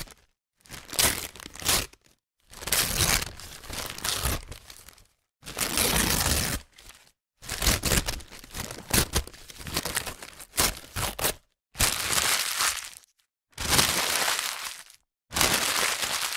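Paper bag being crumpled and handled, crinkling and crackling in about nine separate bursts of a second or two each, with short silent gaps between them.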